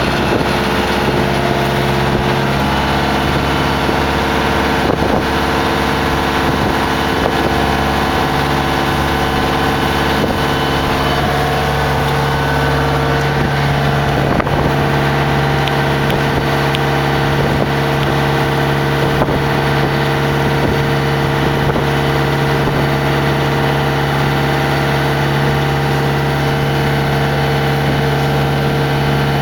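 A motorboat's engine running steadily as the boat moves off across the water, with water and wind noise under it.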